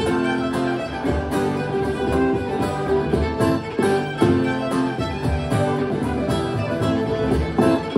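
Two fiddles playing a Celtic reel together over strummed acoustic guitar accompaniment, at a lively, steady tempo.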